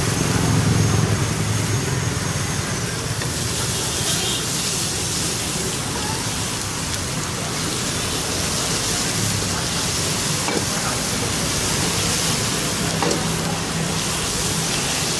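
Chicken frying in hot fat: steady sizzling hiss.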